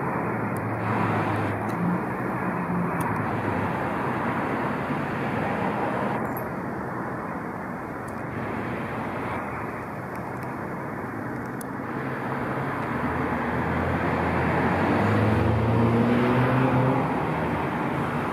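Steady road traffic noise, with a motor vehicle's engine growing louder and rising slightly in pitch about two-thirds of the way through.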